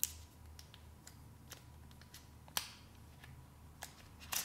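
Thin protective plastic film being peeled off a small action camera's body, giving irregular crinkles and crackles. The sharpest come near the start, about two and a half seconds in, and near the end.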